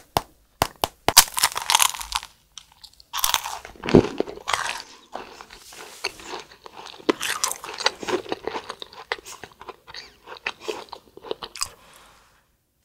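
Biting into a crunchy mint-green snack, with loud crisp crunches over the first few seconds, then steady chewing that dies away near the end.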